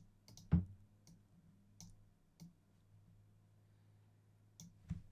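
Computer mouse clicking a few separate times, the loudest about half a second in, over a faint steady low hum.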